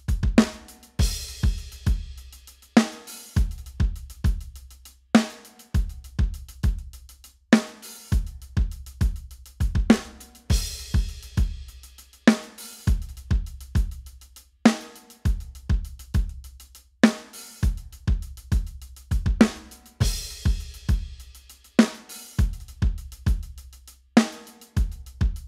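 Drum kit playing a steady beat of kick drum, snare and hi-hat, with a cymbal crash opening the pattern about every two seconds.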